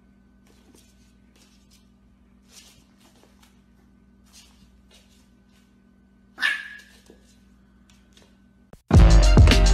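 A bulldog puppy gives one short, high yip about six and a half seconds in, among faint scratches and taps as it moves about on the floor. Loud electronic music starts suddenly near the end.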